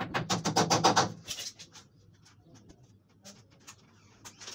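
Rapid scraping strokes, about ten a second, of a metal hand tool worked against a bathroom wall, stopping about a second in. Then a few light clicks.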